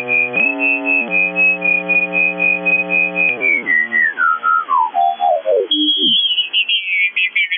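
Radio receiver whistle: a pitched tone that steps up in pitch, holds high for about three seconds, then steps and slides down low, followed near the end by a jumble of falling whistles before a talk station comes through.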